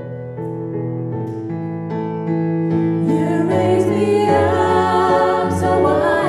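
Background music: slow piano notes over held chords, growing fuller about three seconds in as singing joins.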